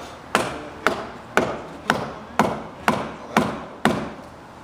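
Steady hammering on wood: eight blows at about two a second, each with a short ringing tail.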